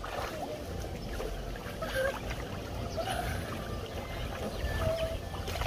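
Water splashing and sloshing as two children play in an inflatable paddling pool, over a steady low rumble, with a few short faint children's voices.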